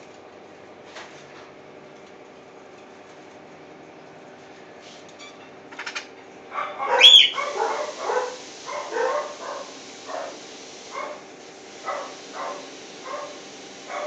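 Emerald toucanet calling: a run of short, harsh, bark-like croaks that starts about halfway through. The first is the loudest, and the rest follow at about one to two a second.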